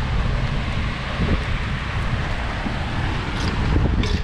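Wind buffeting the microphone of a camera mounted on a moving bicycle, over a steady hiss of bicycle tyres rolling on wet pavement.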